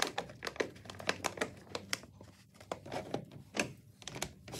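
Disposable plastic paint mixing cups and lids being handled and fitted together: irregular light plastic clicks, taps and crinkles, several a second.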